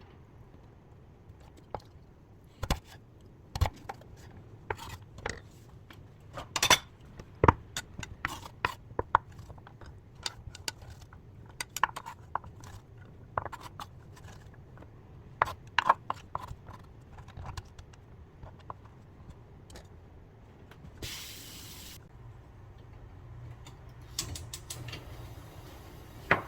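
Kitchen utensils and dishes clinking and knocking in many sharp separate taps during food preparation, with a brief hiss about 21 seconds in.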